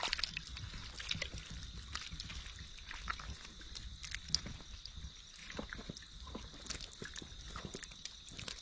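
Intermittent small splashes and sloshing in shallow water, with scattered short clicks and crackles over a low rumble and a faint steady high whine.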